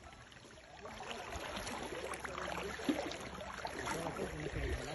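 Shallow river water rushing and splashing around a wader's legs, growing louder about a second in.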